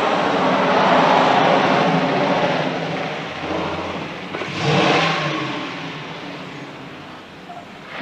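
Chevrolet Corvette convertible's V8 engine running as the car pulls up at the curb, swelling briefly about five seconds in, then dying down.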